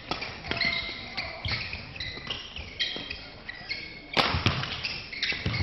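Badminton rally: rackets smacking the shuttlecock in quick exchanges, with shoes squeaking on the court floor, with a louder cluster of hits about four seconds in.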